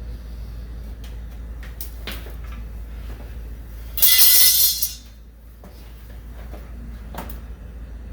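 Handling noise from taking down an old hard-wired smoke alarm: a few light clicks, and a loud scraping rustle lasting about a second near the middle, over a low steady hum.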